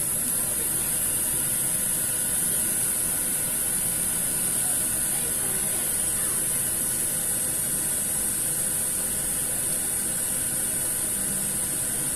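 Steady high-pitched hiss that does not change.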